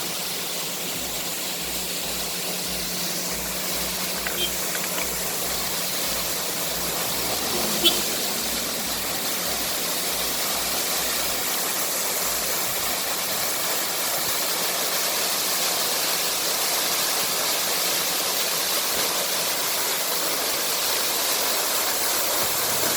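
Waterfall and river water rushing in a steady, unbroken hiss, with one brief click about eight seconds in.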